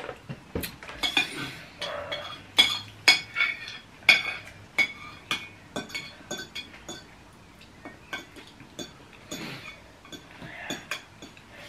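Metal fork and spoon clinking and scraping against a plate as food is scooped up and eaten: a run of sharp clinks, thickest in the first five seconds and sparser after that.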